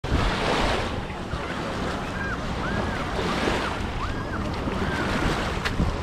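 Sea surf washing onto a beach, with wind noise on the microphone; the wash swells at the start and again about three seconds in. From about two seconds in, five short arched chirps sound in a row, roughly one every two-thirds of a second.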